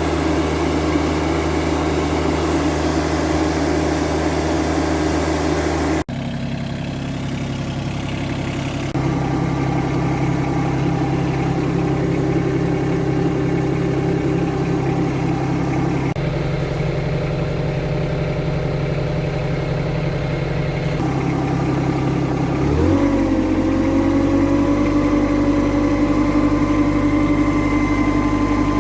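Yanmar 424 compact tractor's diesel engine running steadily, heard in several spliced stretches that change abruptly in tone and loudness. About 23 seconds in the engine note shifts quickly and settles at a new steady pitch.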